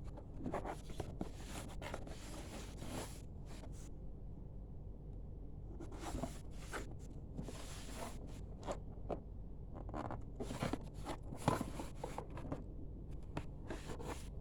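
Packaging being handled during unboxing: irregular rustling and scraping, with a pause of about two seconds about four seconds in, over a faint steady low hum.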